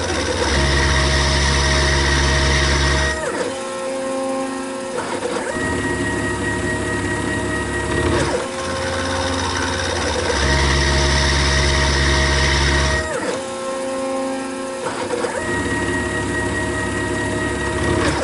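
Milling machine with a 1/4-inch ball end mill cutting a bevel into a cast iron block in repeated passes: a steady motor whine, with a louder stretch of low hum and hiss every few seconds as the cutter traverses.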